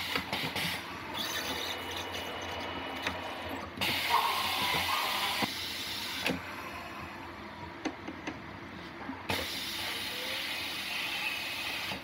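Compressed air hissing at a tire-changing machine, in two longer bursts about four and nine seconds in, with scattered clicks and knocks of tools and fittings on the wheel over a steady low hum.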